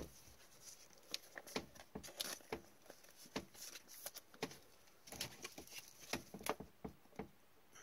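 Faint, irregular light clicks and rustles of trading cards being handled and shuffled between gloved hands, a little busier near the end.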